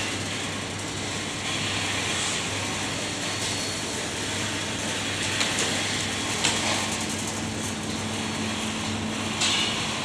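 Steady supermarket background noise: a constant low hum under an even hiss, with a few brief clicks about halfway through and near the end.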